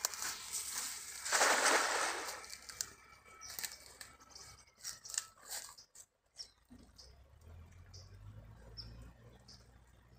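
A cast net thrown into a river, its weighted edge landing on the water with a splash about a second and a half in, followed by scattered rustling and clicks as the line is handled.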